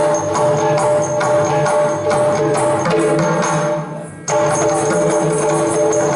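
Yakshagana accompaniment music: rapid drum and small-cymbal strokes over a steady held drone. The music drops away briefly about four seconds in, then resumes abruptly.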